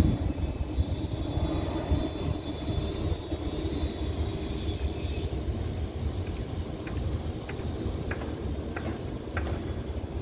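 Twin-engine jet airliner climbing away after takeoff: a distant, steady engine rumble that slowly fades, with a higher whine that drops out about halfway through.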